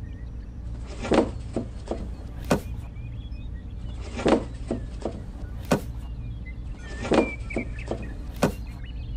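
Plastic toy fruit knocking as it is set into a small toy trailer, a light knock about every second and a half, over a steady low hum.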